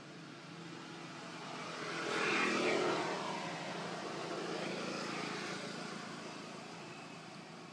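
A motor vehicle or aircraft engine passing by. It swells to a peak about two and a half seconds in, then fades away over the next few seconds.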